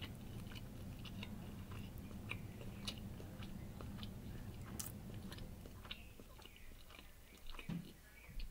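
Close-up chewing of a mouthful of roast beef and cheddar sandwich, with many small wet mouth clicks over a low steady hum that fades about six seconds in; a few soft thumps near the end.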